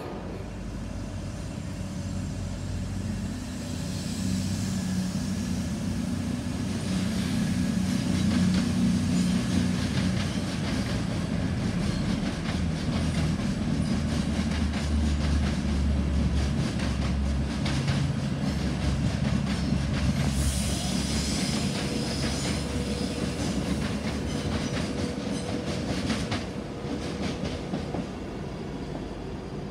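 Avanti West Coast Class 390 Pendolino electric train moving slowly along the platform: a low rumble and hum that swells through the middle, with wheels clicking over rail joints and a steady tone coming in near the end.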